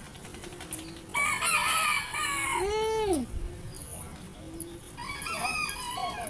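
A rooster crowing. One full crow starts about a second in and ends on a long falling note just after three seconds, and a second, shorter call comes near the end.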